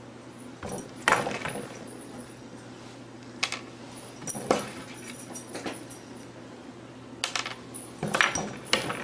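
Scattered light clicks and taps, several close together near the end, over a faint steady low hum.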